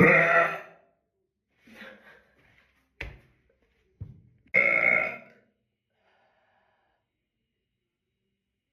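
A woman burping loudly twice, each burp lasting most of a second, with a softer burp between them and two short knocks just before the second loud one.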